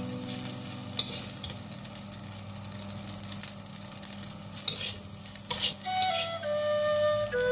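Plain cooked rice stir-frying in a metal wok with a soft sizzle, a spatula scraping and tossing it against the pan with a few sharper scrapes. Near the end, flute-like background music comes in.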